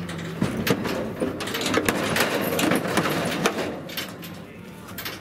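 A horse's hooves knocking and clattering on a pickup truck's bed and stock rack as it steps down out of the truck. The knocks stop about three and a half seconds in, once the horse is on the grass.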